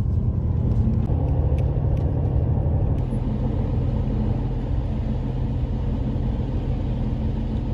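Steady low rumble of a tour bus's engine and road noise, heard from inside the moving bus.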